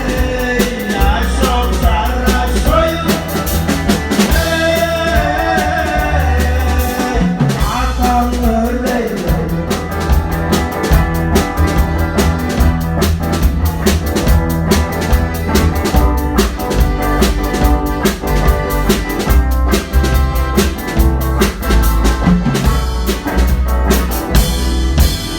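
Live band music with a drum kit and heavy bass, with a voice singing over the first several seconds before the drums and instruments carry on without it.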